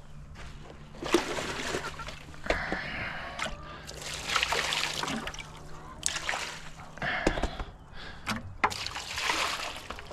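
Water splashing and sloshing in a chicken waterer, in several bursts about a second long.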